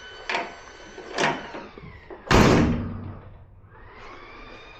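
A pickup tailgate being shut on its hinges: two light metal clunks, then a loud slam about two seconds in that rings on for about a second.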